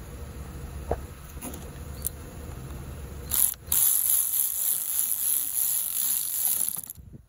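Impact wrench tightening the centre nut of a car A/C compressor's clutch front plate, running in two bursts from a little after three seconds in, with a brief stop between them, and cutting off near the end. Before it come a few light clicks as the holding tool and socket are fitted.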